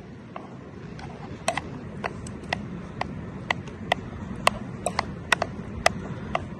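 A series of sharp, slightly ringing knocks, about two a second, over a low rumble.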